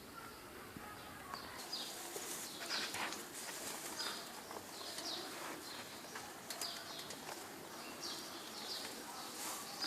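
Faint chirping of small birds, many short high calls repeated irregularly over light background ambience.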